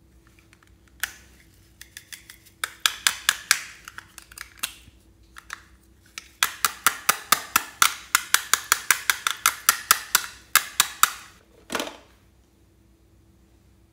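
Rapid sharp clicks and cracks of a plastic unicorn case being pulled apart in the hands, a short cluster then a longer run of about six a second, with one duller knock near the end.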